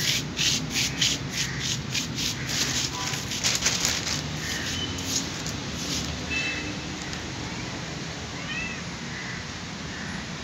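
Plastic sheeting crinkling and rustling in quick, repeated strokes as kittens scramble over it, fading out after about four seconds. Later, a couple of short, high chirps.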